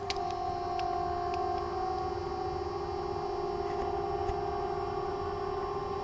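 A siren sounding one long, steady tone with a higher tone above it, holding level without rising or falling.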